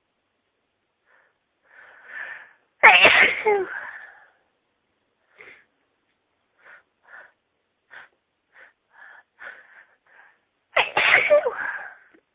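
A person sneezing twice during a sneezing fit, once about three seconds in and again near the end, each a loud, sudden burst. Faint breaths lead into the first sneeze, and a run of short, faint breaths comes about every half second between the two.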